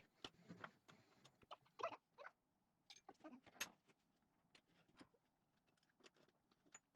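Near silence, with faint scattered clicks and small knocks.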